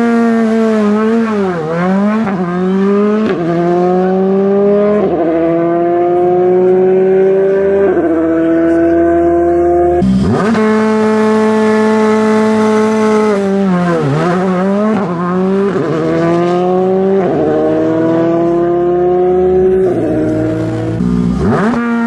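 Škoda Fabia Rally2 cars' 1.6-litre turbocharged four-cylinder engines launching from a rally start line, twice in turn. Each holds its revs steady, dips as it pulls off, then climbs in a series of quick upshifts. Near the end the next car sits at steady held revs.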